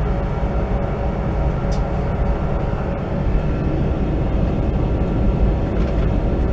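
Steady low rumble inside a passenger train carriage as the train pulls away, with a faint steady hum and a few light clicks.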